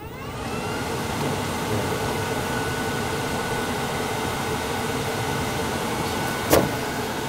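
A 12-volt blower starting up with a rising whine, then running steadily at full speed, pushing air through RV air-conditioning ductage with a steady rush of air and a thin whine. One sharp knock about six and a half seconds in.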